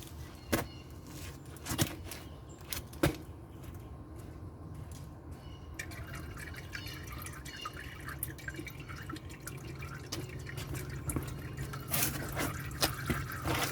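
Engine oil dripping and trickling from the drained sump into a drain pan. There are a few sharp single drips in the first three seconds, then a quicker patter of drips from about six seconds in, over a steady low hum.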